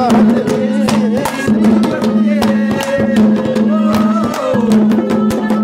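Haryanvi ragni folk music without words: a steady low drone under a melody line that bends in pitch, with quick, regular hand-drum strokes.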